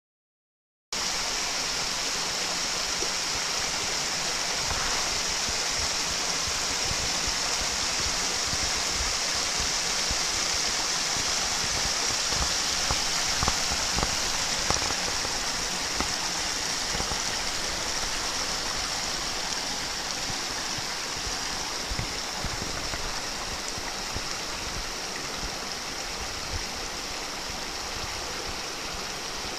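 A seasonal rocky stream in flow, its water rushing steadily over small cascades and into pools. The sound starts about a second in and eases a little in the second half.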